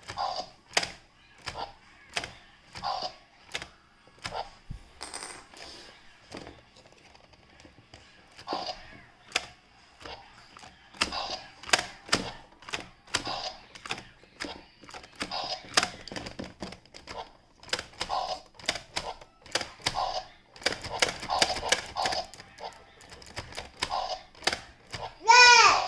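Small plastic clicks and taps from handling a toy T-Rex's battery compartment during a battery change, sparse at first and quicker later. Near the end there is one short, loud pitched sound that rises and falls.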